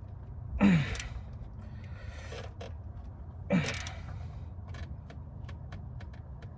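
A man grunts with effort twice, a short strained exhale falling in pitch each time, about half a second in and again about three seconds later, while levering and ratcheting the belt adjuster bolt tight. Faint ratchet clicks sound in between.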